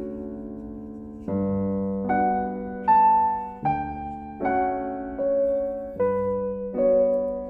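Background music: slow, soft piano playing a melody over chords, each note struck and left to fade.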